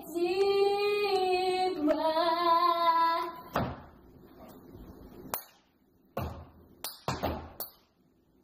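A young girl singing in long held notes, stopping about three seconds in. Then a soft thump and a few short, scattered hand claps.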